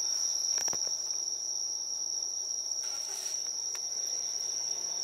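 Night insects keep up a steady, unbroken high-pitched trill, with a couple of faint clicks and a short hiss about three seconds in.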